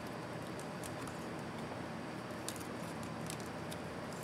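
Faint, scattered small clicks and ticks of a precision screwdriver and fingertips on a laptop's internal parts, over steady room hiss.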